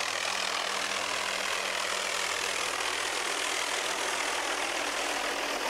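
MD 500-series light turbine helicopter flying low overhead, its rotor and turbine engine running steadily.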